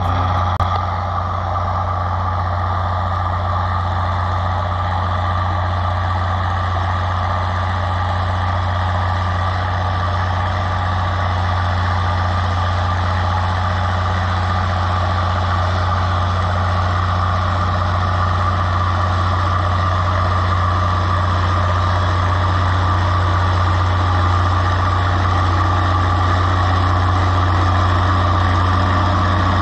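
Cockshutt 1850 MFWD tractor engine running steadily under load as it pulls a plow, with a strong low drone, getting slightly louder as the tractor comes closer.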